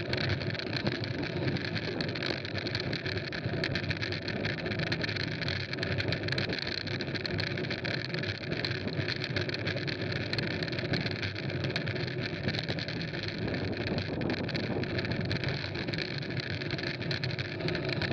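Steady rush of wind and tyre noise from a mountain bike riding fast on a gravel road, with small ticks and crackles of gravel all the way through.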